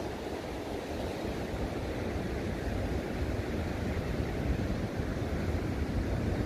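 Heavy ocean surf breaking on a beach, a steady rushing noise, with wind rumbling on the microphone.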